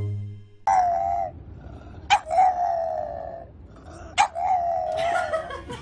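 French bulldog howling: three long, slightly wavering howls. The first starts a little under a second in, and the next two each begin with a sharp yip.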